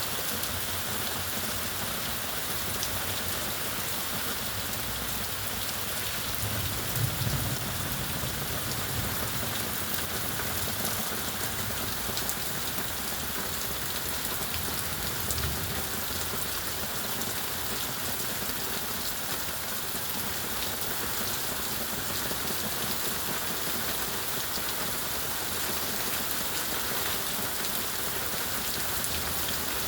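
Steady rainfall, a dense even hiss of drops pattering on surfaces. A brief low rumble rises about seven seconds in, with a smaller one about fifteen seconds in.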